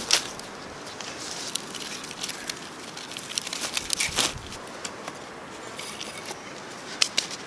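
Dry sticks being laid by hand over a pile of dry pine needles for a campfire: rustling and crinkling of the needles with scattered sharp clicks and knocks of wood on wood, the loudest around four seconds in and again near seven seconds.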